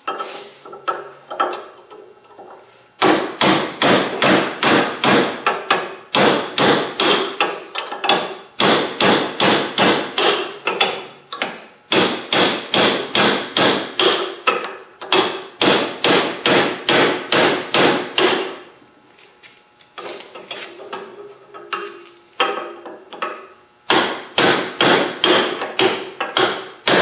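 Hammer driving a chisel against the torch-cut inner bearing race on a Honda Civic front hub held in a vise: quick runs of ringing metal-on-metal blows, about three a second, with lighter taps at first and short pauses between runs. The race is being pounded off the hub shaft.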